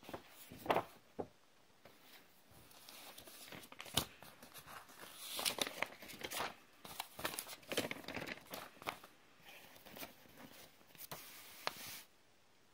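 Paper leaflets being handled and leafed through: irregular rustling with small clicks, stopping suddenly near the end.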